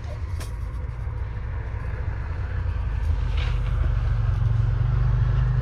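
Snowmobile engine running with a steady low drone as it approaches, growing louder through the second half.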